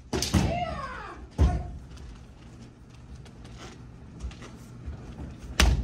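Kumdo sparring: a shout (kiai) with falling pitch just after the start, a loud sharp smack about a second and a half in, light clacking of bamboo swords (shinai) through the middle, and another loud smack near the end.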